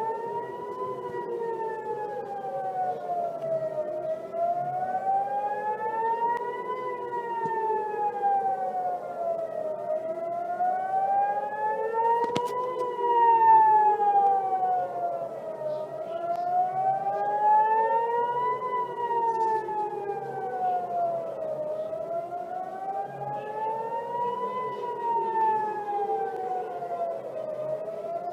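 Warning siren wailing, its pitch rising and falling slowly about every six seconds, with a second tone sweeping the opposite way so the two cross.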